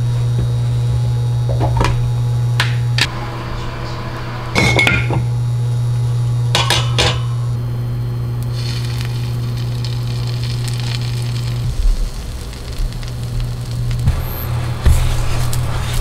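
Induction cooktop humming steadily under a pan, with a few sharp clinks and knocks of kitchen containers and utensils in the first seven seconds. From about eight seconds in, pancake batter poured into the hot pan sizzles softly, and the hum eases off near the end.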